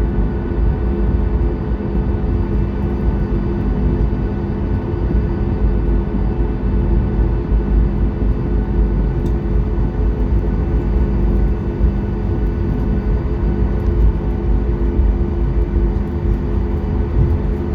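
Steady engine hum of a Boeing 737 MAX 8's CFM LEAP-1B turbofans at low power, heard inside the cabin: a deep rumble with several steady tones over it, no spool-up.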